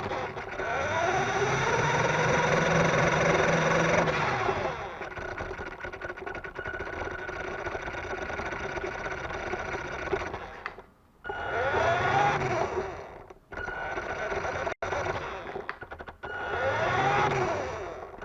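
Electric motor and gear train of a radio-control car whining as it is driven in short runs, the pitch rising and falling with each burst of throttle and cutting out briefly a few times. The car is being run to find a knocking noise that the owner has not traced.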